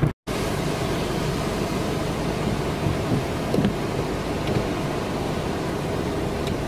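Steady hiss of hurricane rain and wind, even throughout with a few faint ticks. A brief gap of silence right at the start.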